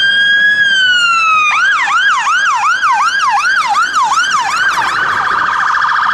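A fire engine's electronic siren. It runs a slow wail, then switches to a fast yelp of about three upward sweeps a second, and about five seconds in changes to a rapid pulsing tone.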